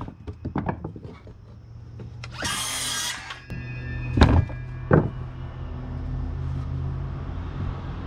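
Cordless circular saw making one short cut through a thin wooden sticker about two and a half seconds in, after a light clatter of sticks. Two thumps follow about a second apart and are the loudest sounds.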